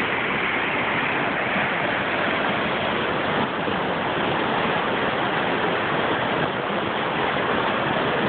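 Flooded Tiber River, muddy and swollen, rushing and churning through its channel in white water: a loud, steady rush of water with no breaks.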